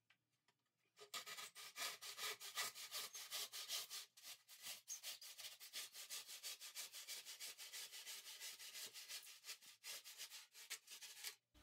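Handsaw cutting through a foam boar head mannequin, faint quick back-and-forth strokes, about three or four a second, starting about a second in and running on.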